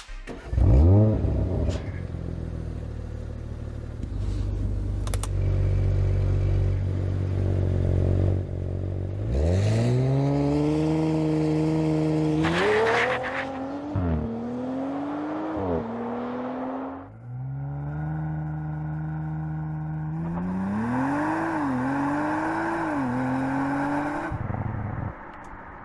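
Audi RS5's 2.9-litre twin-turbo V6 gives a short rev flare about a second in, then rumbles low and steady. It then accelerates hard twice, the engine pitch climbing and dropping back at each upshift, three shifts in the first run and two in the second.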